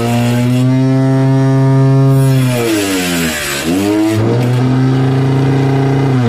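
Homemade table saw's DC motor spinning a thin blade with a steady whine that sags in pitch as the blade cuts into MDF board and climbs back as the cut finishes, once about halfway through and again near the end, with a rough cutting hiss during each cut.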